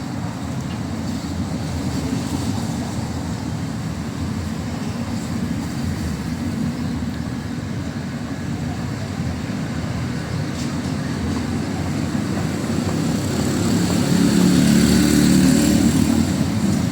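City street traffic: a steady low rumble of passing vehicles, swelling louder near the end as a heavier vehicle goes by.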